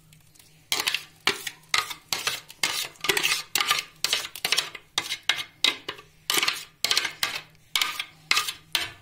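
Raw chicken pieces being turned by hand in a thick blended marinade in a bowl: repeated wet squelches and knocks against the bowl, about two a second, starting about a second in.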